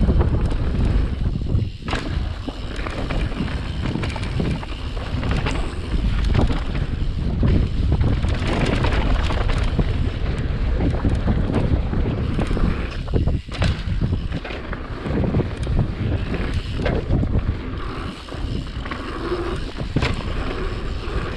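Wind buffeting the microphone during a fast descent, with a steady rush and frequent short knocks and scrapes.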